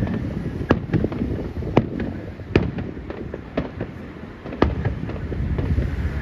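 Aerial fireworks shells bursting in a steady run of sharp bangs, about one a second, with a continuous low rumble between them.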